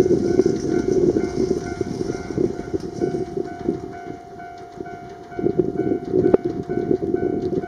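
JR Hokkaido train running past, its rolling rumble easing off over the first few seconds and swelling again about five seconds in, with a sharp click near six seconds. A faint tone pulses about twice a second in the background.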